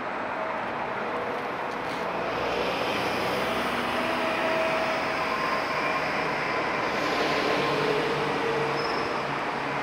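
City traffic on a shared tram-and-bus lane: a tram and several city buses passing close by, with a steady rumble and a faint motor whine. The noise swells in the second half as the buses come near.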